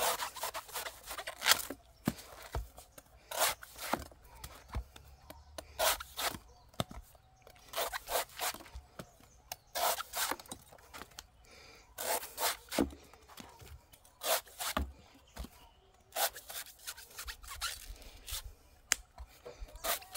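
Large knife shaving slices off the fibrous husk of a green coconut: crisp scraping cuts in short runs about every two seconds.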